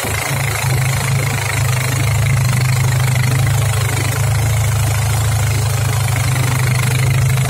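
Motorboat engine running steadily under way, a low even hum with a steady hiss of water and wind over it.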